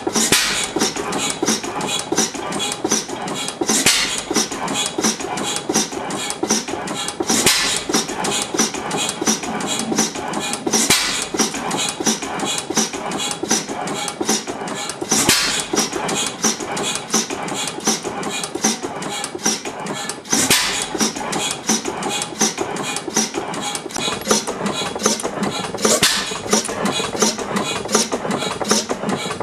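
1911 Anton Schlüter 5 hp stationary engine running: a fast, steady mechanical clatter, with a louder bang every four seconds or so.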